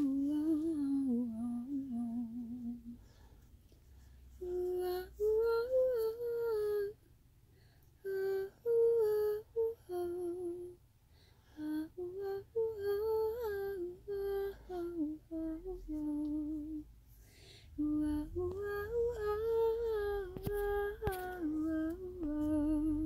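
A woman humming a slow, gentle lullaby-like melody in phrases of a few seconds, with short pauses between them, to soothe a sleeping baby.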